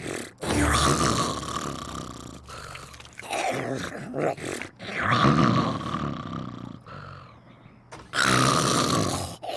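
A person sighing loudly, about four long drawn-out sighs in a row, each a second or two long.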